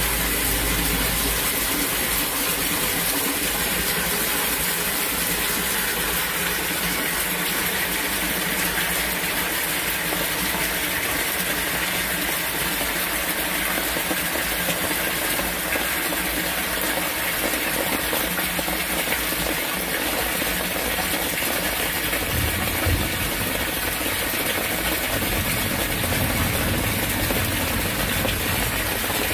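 Torrential rain pouring down with storm water rushing, a loud, steady hiss. About 22 seconds in, a low hum joins underneath.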